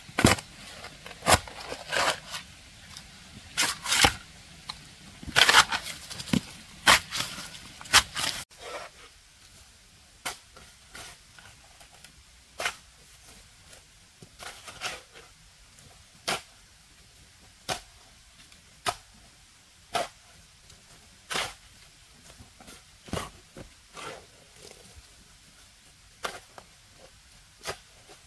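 A long-handled shovel blade chopping and scraping into soil and weeds. The strokes are close, loud and uneven for the first eight seconds or so, then fainter and steady at about one stroke a second.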